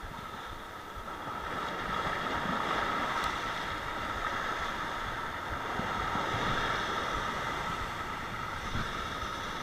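Sea waves surging against the rocky shore: a rush of water noise that swells a second or two in, holds, and eases a little near the end.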